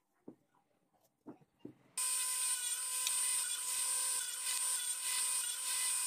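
A few faint taps, then about two seconds in a miter saw runs steadily with a constant high whine, its blade cutting slots into a wooden block.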